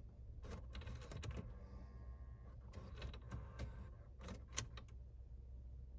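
Mercedes CLS W219 head unit (CD module) running its power-up self-diagnostic: a series of quiet mechanical clicks and short whirs, which the owner takes for the CD mechanism being checked.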